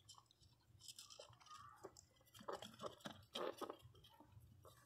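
Faint, irregular wet smacking mouth sounds from a pinscher mother and her young puppies in their bed.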